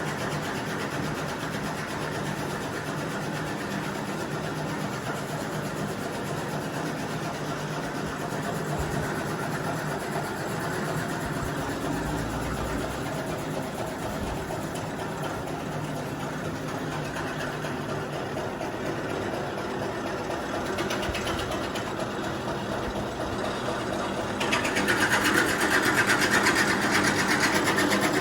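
A machine running steadily with a fast, even rattle, getting louder about three-quarters of the way through.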